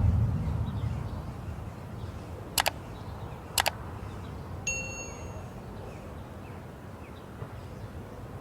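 Two sharp clicks about a second apart, then a single short metallic ring from cookware or a metal utensil being struck.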